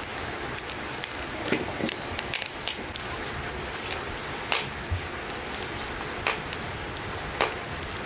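Wood fire of square-cut pine firewood burning in an open fire pit, crackling steadily with scattered sharper pops every second or two.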